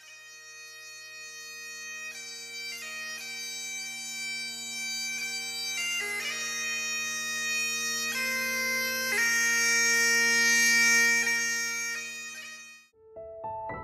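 Great Highland bagpipes playing a slow melody over steady drones, growing gradually louder. The pipes stop suddenly near the end and a few piano notes begin.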